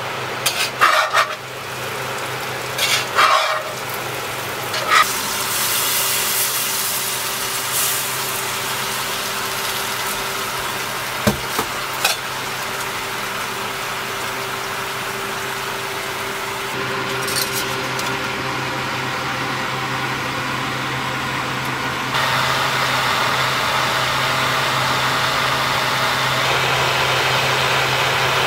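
Food sizzling in a pan on a gas stove, with a few knocks of cookware and utensils in the first five seconds, over a steady low hum of an appliance running.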